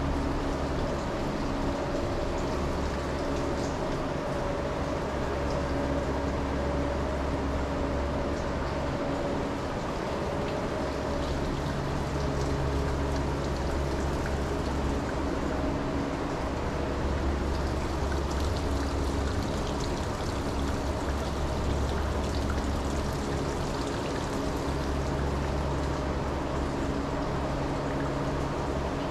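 Steady machine hum with a continuous water-like rushing over it; the lowest hum swells and eases every few seconds.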